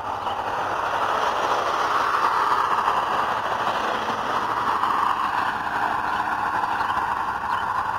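Diesel-electric locomotives passing, led by an EMD SD60 with its 16-cylinder diesel working under load and two Norfolk Southern units behind, a steady engine and rolling noise that builds over the first couple of seconds and eases slightly near the end.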